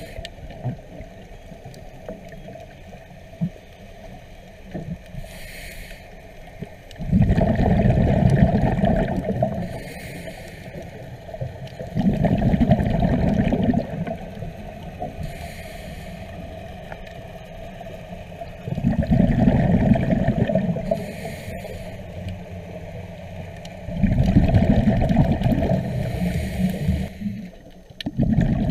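A scuba diver breathing underwater: a faint hiss of inhaling through the regulator, then a loud rush of exhaled bubbles, repeating about every five to six seconds, muffled as heard underwater.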